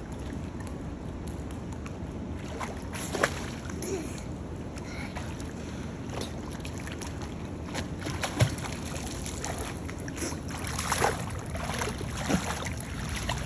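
Pool water splashing and sloshing as a young child swims, with a few sharper splashes (about 3 s in, about 8 s in, and several near the end) over a steady low rumble.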